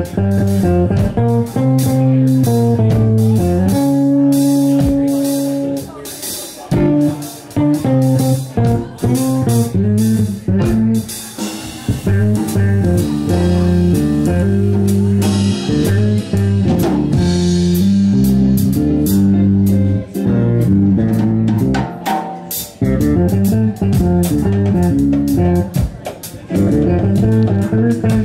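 Live jazz trio playing: electric guitar and bass lines over a drum kit, with steady cymbal strokes and a thicker cymbal wash about midway.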